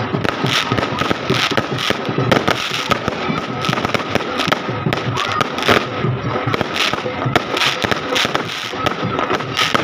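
Fireworks going off: a dense, irregular run of sharp bangs and crackles that does not let up.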